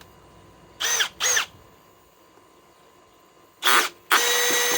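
Cordless Milwaukee M12 drill driver's motor blipped twice in quick short pulls, its pitch rising and falling each time. A third pull follows near the end, and then the motor runs steadily at full speed.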